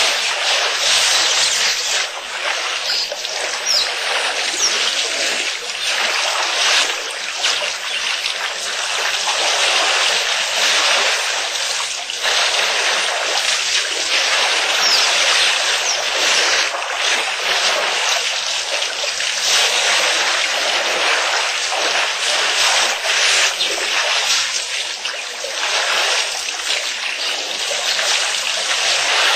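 Water splashing and trickling steadily as a herd of elephants wades and drinks at a waterhole.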